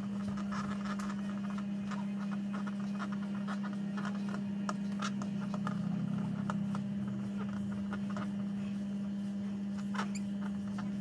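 Whiteboard marker squeaking and ticking in short strokes as it writes letters, over a steady low hum.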